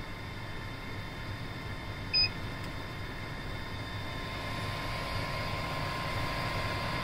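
Afinia H440 3D printer giving one short electronic beep about two seconds in, over the steady hum of the running machine. A thin high whine in that hum grows louder in the second half.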